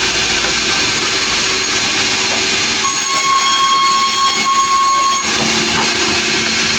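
Sawmill saw running through timber: a loud, steady hissing whine over a machine hum. A high ringing tone comes in about three seconds in and stops about two seconds later.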